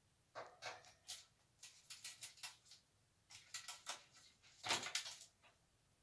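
Cockatiel tapping its beak against a hard surface in quick runs of taps, about four runs, with the loudest near the end.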